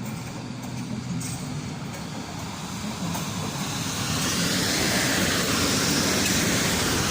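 A train running past, its rumble and wheel-on-rail noise growing louder over the first few seconds and then holding steady.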